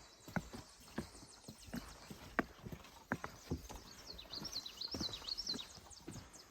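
Irregular, hollow-sounding knocks and clicks, two or three a second. About four seconds in, a bird sings a short, quick phrase of high, falling chirps.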